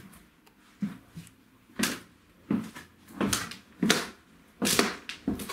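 Footsteps going down a wooden staircase, a knock on the wooden treads about every two-thirds of a second, growing louder from about two seconds in.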